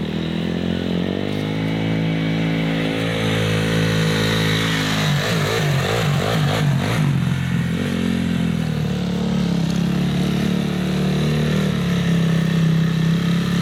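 Honda CRF250X four-stroke single-cylinder dirt bike engine running at a low, steady speed as it is ridden. Its note wavers for a few seconds about midway as the bike passes close by, then settles back to a steady note.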